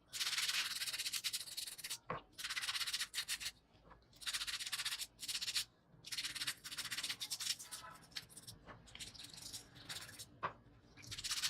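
Sandpaper rubbed by hand over a part of an old children's scooter, in spells of quick back-and-forth strokes a second or two long with short pauses between them.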